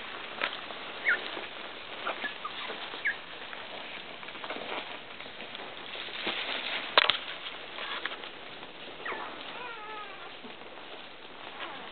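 Nursing pitbull puppies squeaking: short high squeaks, then a few falling whimpers about nine to ten seconds in, over small clicks and shuffling, with one sharper click about seven seconds in.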